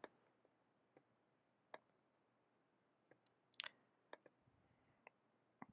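Near silence with a handful of faint, scattered computer mouse clicks.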